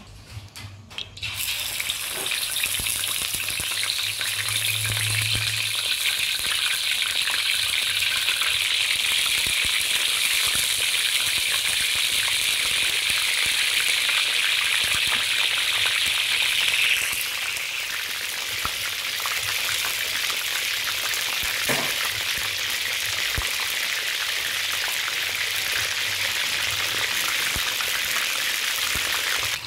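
Fish frying in hot oil in a large wok: a loud sizzle that starts suddenly about a second in as the fish goes into the oil, easing a little about halfway through.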